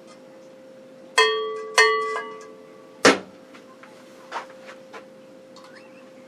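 A cowbell struck twice, about half a second apart, each strike ringing out and dying away within a second. About a second later comes a single sharp knock, the loudest sound, then a few faint clicks over a steady low hum.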